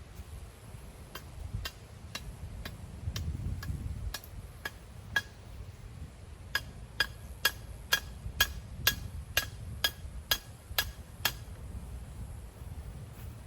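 Hammer strikes driving a metal ground rod into the ground, about two ringing blows a second, growing louder partway through and stopping about two seconds before the end.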